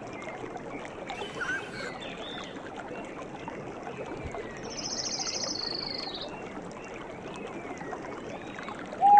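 Natural soundscape of steady running or trickling water with small bird chirps scattered through it. About halfway in, a rapid high trill lasts a second or so, and a louder, lower held call starts right at the end.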